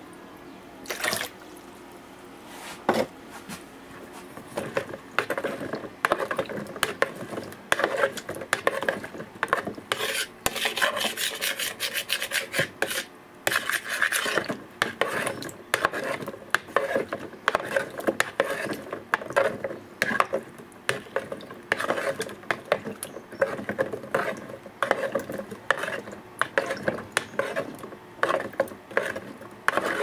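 Garden soil being scraped and worked over in irregular scraping and rubbing strokes. The strokes are sparse for the first few seconds and come thick and steady from about five seconds in.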